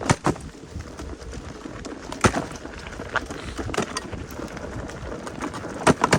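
Mountain bike suspension banging and slamming over bumps on a downhill run: irregular sharp knocks over a steady low rumble, the loudest about two seconds in and twice just before the end. The bangs are typical of the harsh behaviour this suspension shows after 1900 km of riding.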